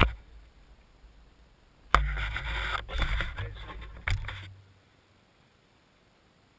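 Camera handling noise: a click, then about three seconds of rubbing, knocking and scraping as the camera is moved and set down on the asphalt, with a sharp knock about four seconds in, then near silence.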